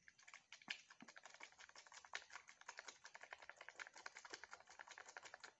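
Faint, fast ticking and light clicking, roughly ten ticks a second, of a thin disposable plastic cup of water being swirled by hand to mix in drops of cleaning liquid.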